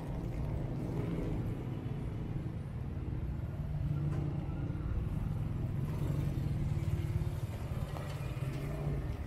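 Car engines running in street traffic, a steady low hum, with heavy rain falling on the street.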